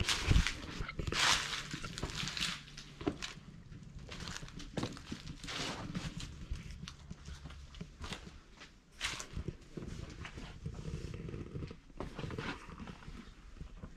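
Footsteps crunching and scuffing over dry leaves and loose dirt, irregular steps with a few louder crunches near the start.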